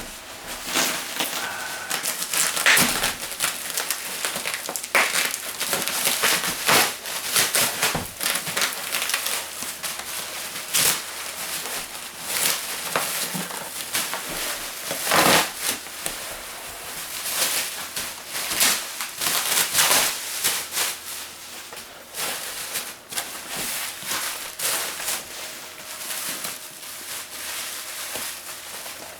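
Packing material crinkling and rustling with a steady run of small crackles and clicks as a shipping box full of foam packing peanuts is unpacked by hand.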